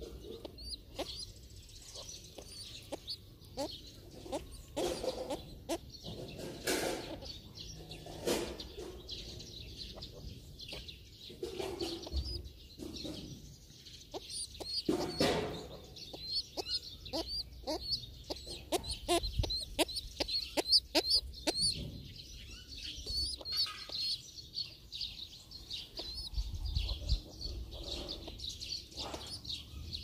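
Yard birds calling: short low calls at irregular intervals, with a busy run of high, quick chirps through the middle stretch.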